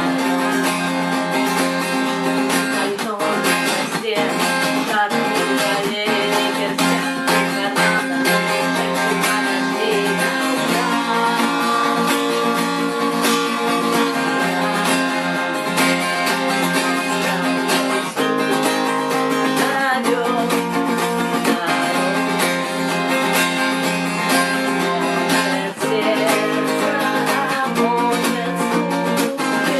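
Acoustic guitar strumming chords steadily.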